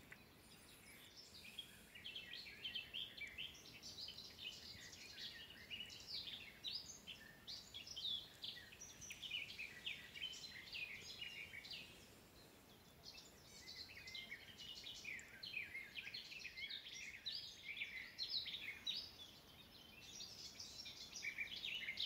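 Faint chorus of songbirds: many short, quick, high chirps overlapping one another, with a brief lull about halfway through.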